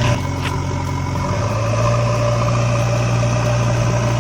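Vehicle engine idling with a steady, even drone.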